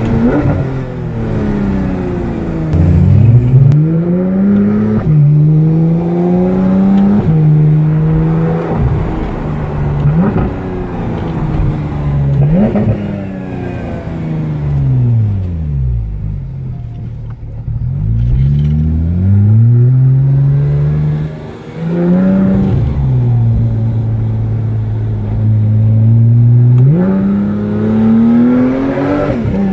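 Porsche 991 GT3's naturally aspirated flat-six heard from inside the cabin. The revs climb and drop sharply at several gear changes, then fall away in one long glide as the car slows. They rise again, hold steady for a few seconds of cruising, and climb once more near the end.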